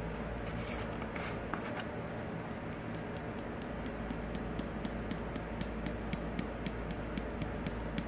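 Light, quick ticking, about four taps a second from about three seconds in, over a steady low hum: a small plastic jar of blue highlight powder being tapped to sprinkle a pinch into a cup of liquid plastisol.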